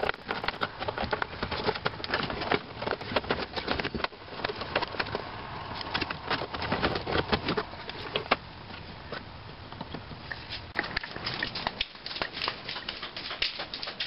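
Corrugated plastic wire loom and wiring being handled and pushed around under plastic trim: a dense, irregular run of crackling, rustling and small clicks.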